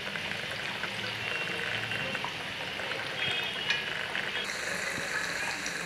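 Potato pakoras deep-frying in hot oil: a steady sizzle with scattered crackles and pops, one sharper pop a little after halfway.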